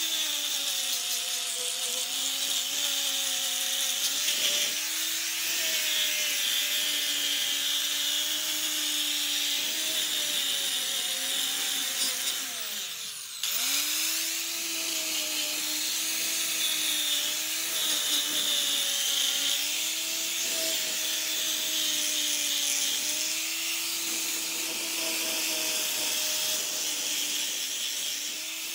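Handheld electric angle grinder running steadily and grinding rust off a wagon's rusty wheel rim, a motor whine over a gritty hiss. About halfway through, the whine drops away as the grinder slows, then it spins back up and grinds on.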